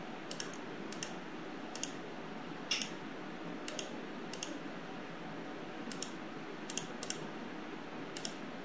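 Computer mouse clicking: about ten short clicks at irregular intervals, some in quick pairs, over a steady low hiss.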